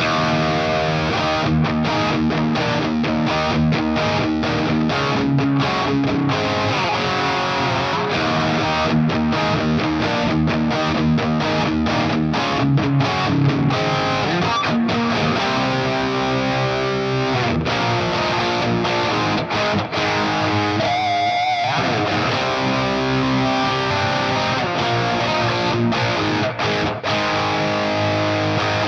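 Frankenstrat-replica electric guitar played through distortion in a continuous run of riffs and chords, with a wavering pitch bend about two-thirds of the way in.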